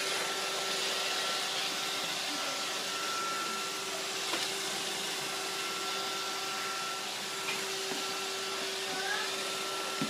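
Roomba robot vacuum running: a steady whirring hiss with a constant hum, and a couple of faint knocks partway through.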